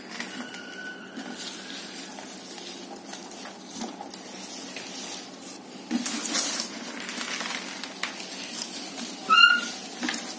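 Dry potting soil and plant leaves rustling and crackling as hands fill and press soil around a plant in a planter. A brief high chirp sounds near the end.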